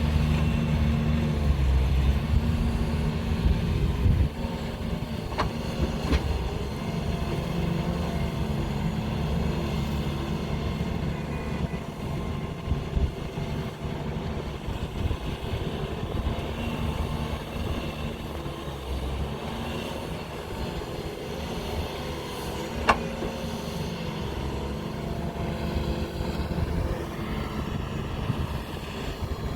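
JCB backhoe loader's diesel engine running under load as it digs and loads. It works harder for the first few seconds, then settles to a steadier note, with a few sharp knocks, the loudest about three-quarters of the way through.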